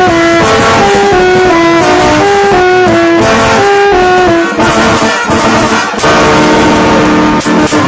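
Rara band music: horns play a short repeating riff of two alternating notes over drums. About four and a half seconds in the riff breaks off briefly, and a held chord follows.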